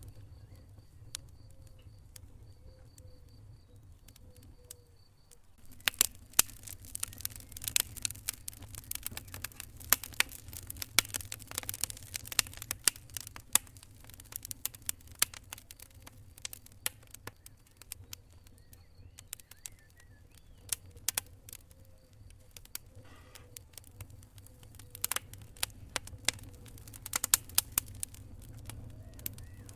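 Wood fire in a fireplace crackling and popping over a low steady rumble. The pops are sparse at first and come in a dense, irregular run of sharp snaps from about six seconds in.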